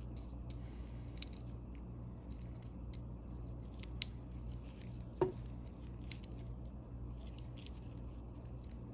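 Small metal clicks and scrapes as gloved fingers work the retention plate of a vintage Williams NM-51 quarter-inch ratchet into the grooves of its head. A few sharper clicks stand out, the loudest about five seconds in with a brief ring, over a steady low hum.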